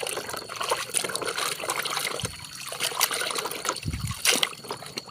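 Water trickling and splashing while muddy toy vehicles are rinsed clean, with many small clicks throughout and two dull thumps, one a little after two seconds and one about four seconds in.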